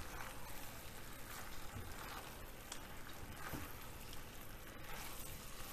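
Faint, steady sizzle of penne and cherry-tomato sauce in a frying pan on the heat, with a few soft scrapes of a spatula as the pasta is tossed.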